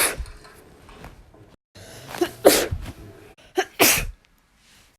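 A woman sneezing, several separate sneezes in quick succession with abrupt silences between them. One ends just as the stretch begins, and two more follow about two and a half and four seconds in, each a short catch of breath and then the loud burst.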